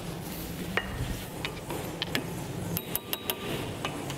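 Light metallic clicks and clinks of a hand tool against a new brake disc as the disc is seated and fastened on the wheel hub, with a quick run of clicks about three seconds in, over a low steady workshop hum.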